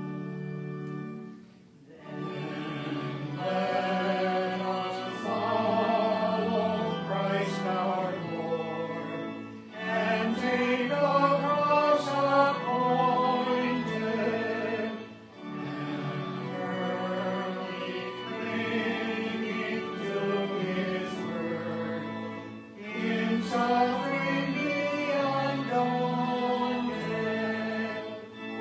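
Choir singing a hymn in slow, sustained phrases about six to seven seconds long, with a short breath between phrases.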